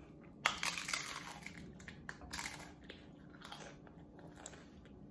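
A person bites into an egg taco with a loud crunch about half a second in, then chews, with another crunching bite about two and a half seconds in and smaller crunches after.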